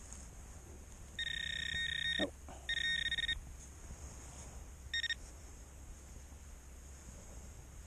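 Handheld metal-detecting pinpointer probe sounding over a clump of dug soil: a steady high-pitched electronic tone for about a second, another shorter one soon after, and a brief blip about five seconds in, each the probe signalling a metal target in the soil.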